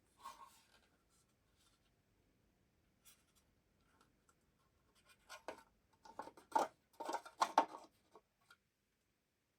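Scratching and scraping handling noises with small clicks: a short scrape at the start, then a run of louder scrapes about five to eight seconds in.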